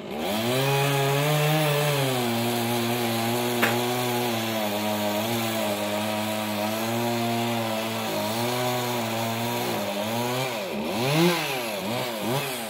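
Chainsaw throttled up and held at a steady, pulled-down pitch while cutting into the wood, then revved up and down a few times near the end before dropping back.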